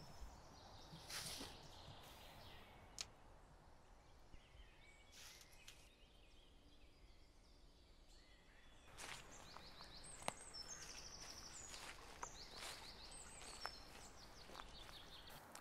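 Quiet woodland ambience with faint bird calls: series of short, high chirps come in about halfway through, with a few soft clicks.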